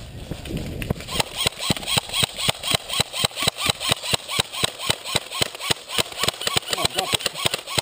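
Airsoft guns firing: a rapid string of sharp shots, about six a second and slightly uneven, starting about a second in.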